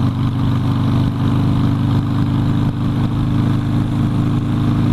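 Harley-Davidson Sportster's V-twin engine running at a steady cruise, its note holding level under a haze of wind and road noise.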